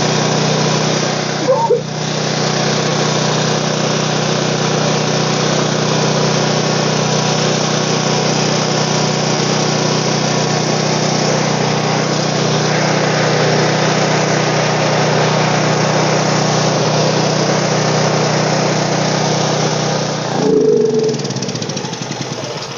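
WEN 11000-watt generator's 457 cc engine running steadily, now that its stuck valve has been freed. Near the end it is shut off, its hum dropping in pitch and dying away.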